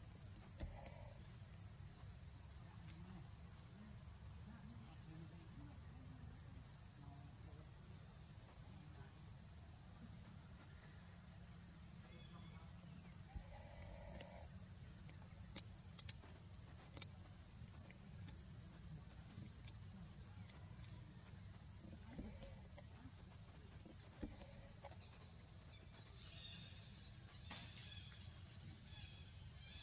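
Insects chirring in a steady pulsing rhythm, about one pulse a second, over a faint low rumble. A few sharp clicks come in the middle and near the end.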